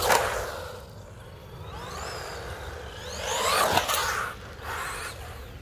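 WLToys 124019 RC buggy's brushless electric motor whining up and down in pitch as the buggy accelerates and slows on asphalt, with tyre noise. It is loudest as it passes close, right at the start and again just under four seconds in.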